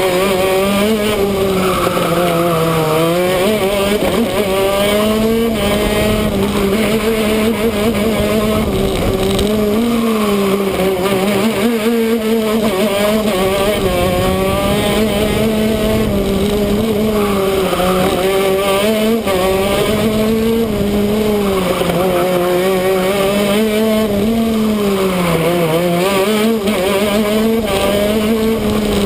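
Shifter kart's two-stroke engine running hard on a lap, its pitch climbing through the gears and dropping back sharply when the driver brakes for corners, clearly about 3 seconds in and again near the end.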